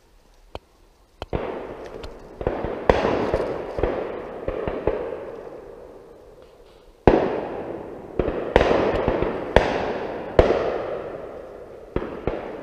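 Shotgun shots from the guns on a driven pheasant shoot, about a dozen in two bursts, each with a long echo through the woodland.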